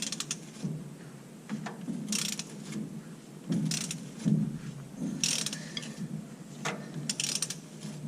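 Ratchet wrench clicking in short back-strokes about every one and a half seconds, working a socket on the F-150's rear differential pinion nut as it is slowly loosened.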